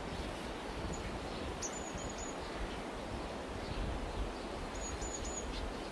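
Outdoor meadow ambience: a steady rustling hiss with a low rumble, and a small bird giving two sets of three short high chirps about three seconds apart.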